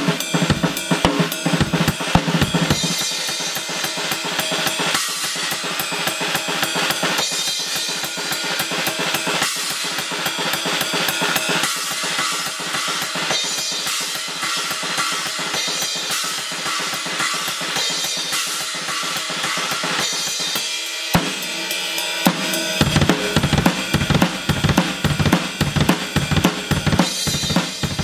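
Acoustic drum kit played in a busy jam: drums and cymbals struck in quick, dense strokes. The bass drum drops out about three seconds in, leaving drums and ringing cymbals, and comes back in steady beats near the end.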